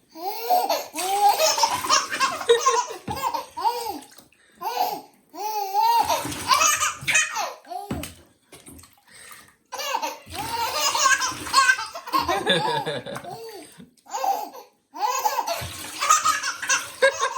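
Baby belly-laughing in repeated rounds of loud, hearty laughs, with bath water splashing along with each round and short pauses between them.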